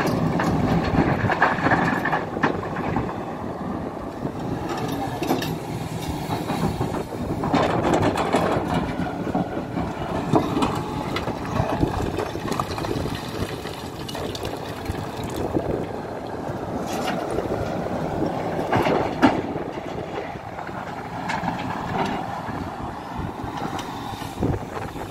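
Hidromek HMK 310LC excavator's diesel engine running under load, with scattered clanks, knocks and scrapes of the steel bucket working in stony ground.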